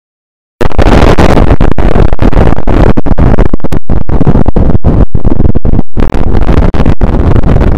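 A harsh, heavily distorted noise cuts in abruptly under a second in and runs at full, clipped loudness, full of low rumble and broken by many brief dropouts.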